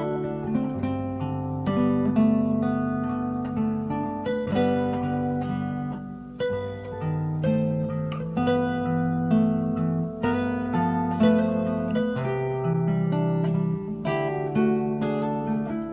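Yamaha SLG110N nylon-string silent guitar played fingerstyle: plucked melody notes over held bass notes.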